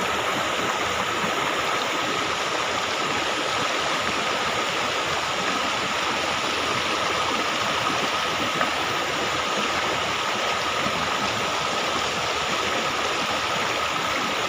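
Shallow rocky stream running, a steady rush of water, with a faint steady high tone running through it.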